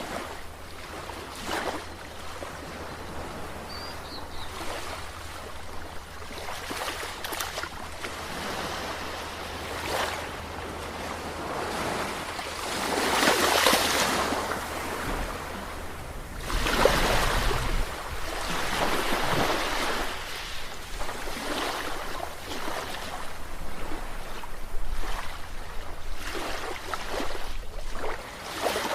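Sea waves washing in and drawing back, swelling loudest about a third of the way in and again just past the middle.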